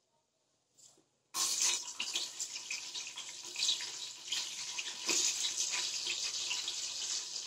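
Hot oil sizzling and crackling in an aluminium pressure cooker as ingredients fry, starting abruptly about a second in.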